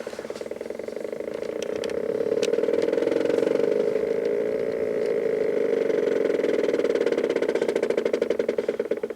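Stepper motor driving an HO-scale model railway turntable, making a buzzing whine of rapid even steps. The steps speed up over the first couple of seconds, run steady, then start to slow near the end as the turntable decelerates.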